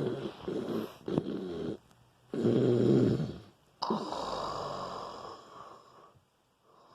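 A man snoring loudly in his sleep, with a choking sound: a fluttering snore trails off, a louder snore comes about two seconds later, then a long breathy exhale starts sharply near the middle and fades.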